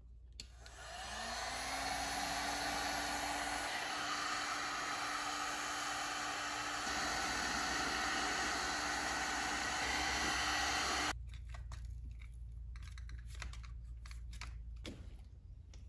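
Heat gun running, its fan motor spinning up to a steady whir with a hiss of blown air, as heat-shrink tubing is shrunk over a battery cable lug. It stops abruptly about eleven seconds in, leaving faint clicks and rustles of heavy cables being handled.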